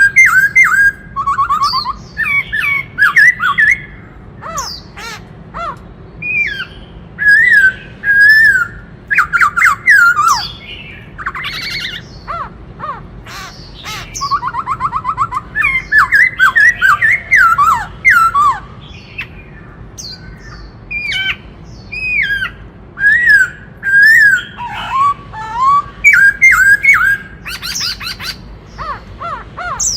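Black-throated laughingthrush singing: a varied series of loud whistled phrases, sliding notes and quick rattling trills, broken by short pauses.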